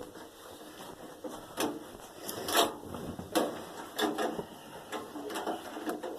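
A knife prying and scraping against metal inside a microwave to work the high-voltage capacitor loose, with irregular clicks and clanks, the loudest about 1.6, 2.6, 3.4 and 4 seconds in.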